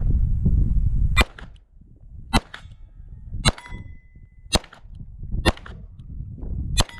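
A string of six 9 mm pistol shots from a Beretta 92, about one a second, fired at steel targets, with steel plates clanging; one plate rings on for about a second after the third shot.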